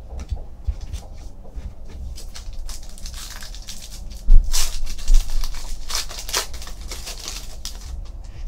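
Foil wrapper of a trading card pack crinkling and tearing as it is opened by hand, with cards handled and shuffled. Two dull knocks about four and five seconds in are the loudest sounds.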